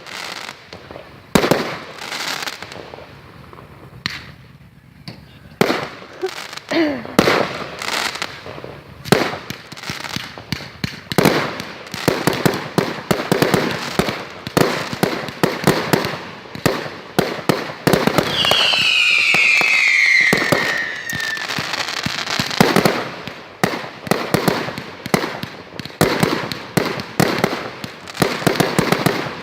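Fireworks display: a run of sharp bangs and crackles, spaced out at first, then coming thick and almost continuous from about a third of the way in. A falling whistle cuts through about two-thirds of the way in.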